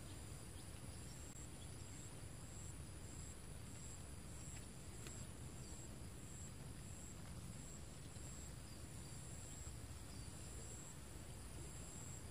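Insects calling steadily in two high, thin tones, the lower one pulsing on and off in an even rhythm, over a low, even outdoor background rumble. A couple of faint ticks about five seconds in.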